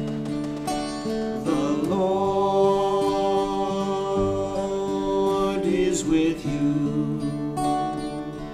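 Two acoustic guitars strumming chords under a man's singing voice in a slow hymn. The voice comes in about a second and a half in and holds one long note until about six seconds.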